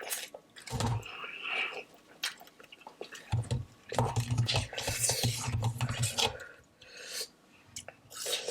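A person chewing mouthfuls of noodles, with light clicks of a fork against the dish.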